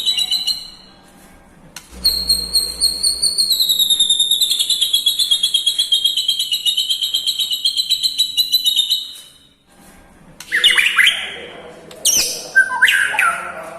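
White-rumped shama singing, its song packed with imitations of other songbirds. After a brief pause, a long fast trill of rapidly repeated high notes runs for about seven seconds. It breaks off, and varied whistled phrases that sweep up and down follow near the end.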